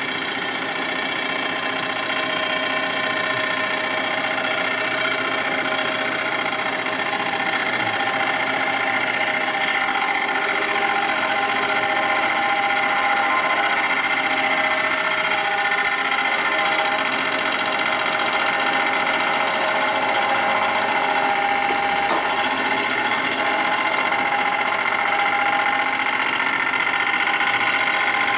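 Machine tool running steadily while its worn cutter takes a light facing cut of a few thousandths across an engine part's sealing surface. It makes a continuous mechanical hum of many steady tones that drift slightly in pitch.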